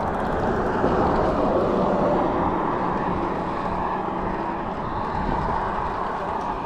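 Steady rushing rumble of wind and passing road traffic on a bridge.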